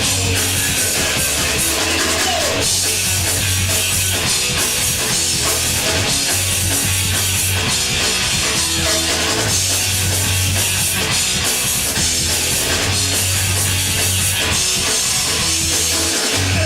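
Punk rock band playing live: distorted electric guitars, bass and a drum kit with crashing cymbals, loud and steady, stopping abruptly at the very end.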